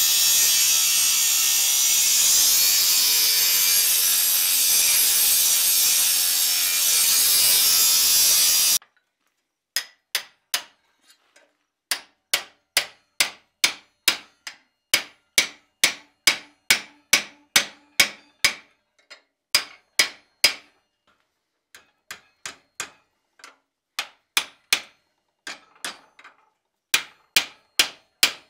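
Angle grinder with an abrasive disc grinding a forged iron piece, a steady loud grind for about nine seconds that cuts off abruptly. Then a long series of hammer blows on red-hot iron held in a vise, about one to two a second, with a few short pauses.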